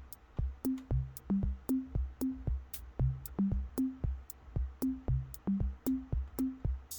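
Background music with a steady electronic drum-machine beat and a short, repeating bass line.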